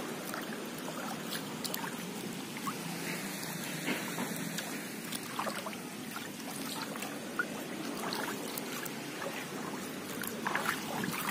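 Shallow water sloshing and trickling, with many small scattered splashes.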